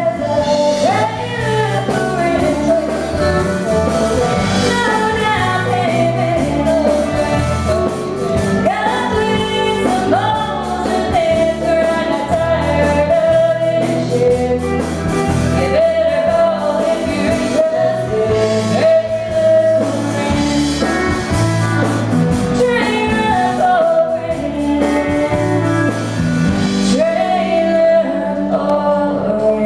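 Live country band: a woman sings lead, holding long notes, over bass and guitar accompaniment.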